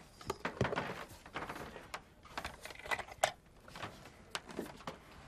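Light clicks and rustling of papers and a folder being handled at an office desk.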